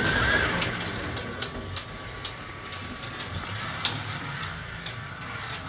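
Carrera Digital 1:32 slot car running on its plastic track: a small electric motor whirring steadily, with a few sharp clicks scattered through.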